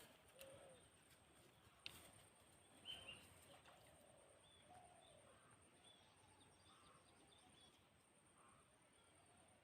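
Near silence: faint outdoor ambience with a few scattered, faint bird chirps and a single light click about two seconds in.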